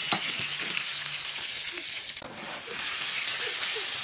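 Steak sizzling in a hot frying pan, a steady hiss, with a short sharp click near the start.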